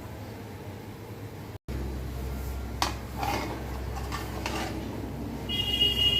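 Metal spatula clattering and scraping against a karahi as a whole chicken is turned over in the pan, a few sharp knocks about halfway through. A steady high-pitched tone sounds near the end.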